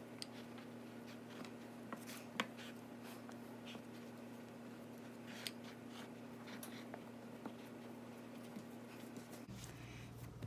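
Faint, scattered light taps and clicks of hands working pie dough in a pie pan, over a steady low hum.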